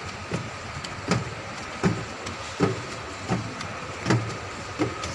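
Escalator running, with a steady hum and a regular clunk about every three-quarters of a second as the steps pass.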